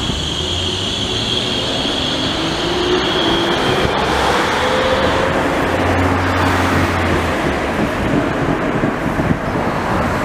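Bombardier Flexity low-floor trams passing close on the track: a steady rolling rumble of wheels on rails, with a high whine that fades about halfway through and a lower whine rising in pitch.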